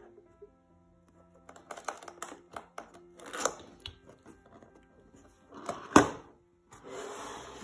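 Cardboard laptop box handled on a table: scratchy rustles and clicks as fingers work a tab on its edge, then a sharp thud about six seconds in as the box is flipped down flat, followed by cardboard sliding on the tabletop. Soft background music runs underneath.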